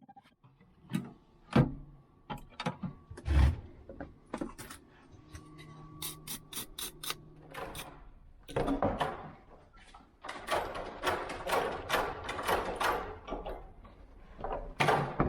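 Hand work with tools while a replacement key is made: scattered sharp clicks and knocks, with two stretches of rasping scrape a little past the middle.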